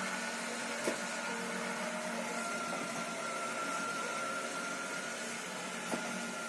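Robot vacuum cleaner running with a steady whir and a high, even whine, with two short clicks, about a second in and near the end.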